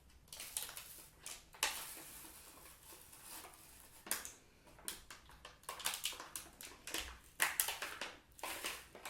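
Handling noise: irregular rustling, scraping and clicking as a small wooden toy whistle and its packaging are turned over in the hands, with a longer rustle about two seconds in. No whistle tone is heard.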